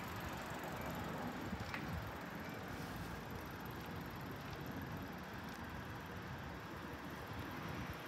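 Steady low outdoor background noise beside a railway line with no train passing, and a faint click about two seconds in.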